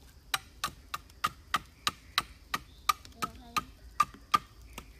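A knife blade chopping at a green bamboo pole in a run of sharp, even strikes, about three a second, each with a short hollow ring.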